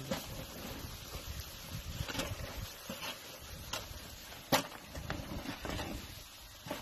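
Chicharrones (pieces of pork skin and fat) frying in their own rendered lard in a metal tub over a wood fire: a steady sizzle with scattered sharp clicks, the loudest about four and a half seconds in.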